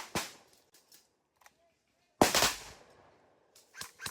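Airsoft guns firing: a couple of quick shots at the start, a loud rapid burst about two seconds in, and a few sharp single shots near the end.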